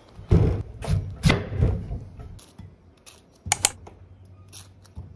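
Household handling sounds: four dull knocks and scrapes in quick succession, then two sharp clicks about three and a half seconds in.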